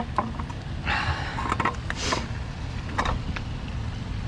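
Scattered clicks and brief rustles of hand tools and parts being handled during water pump removal, over a steady low rumble.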